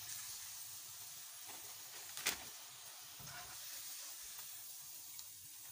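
Potato finger fries sizzling in hot oil, done frying: a faint, steady high hiss, with one sharp click about two seconds in.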